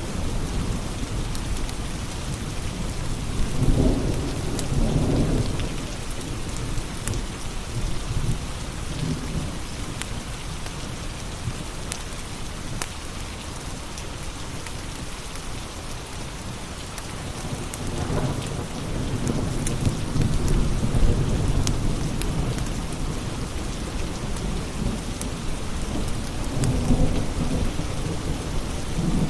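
Steady rain with low rolling thunder that swells three times: a few seconds in, about two-thirds of the way through, and near the end. A wood fire crackles with scattered sharp snaps over the rain.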